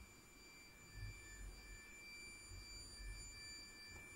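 Near silence: a few faint, thin, high steady tones that fade in and out, over a low rumble.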